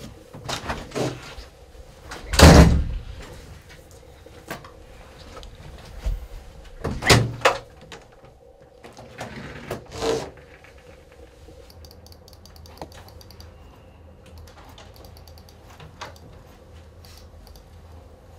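An office door being handled, opened and shut: scattered knocks and rattles, the loudest a heavy thud about two and a half seconds in, with more knocks around seven and ten seconds.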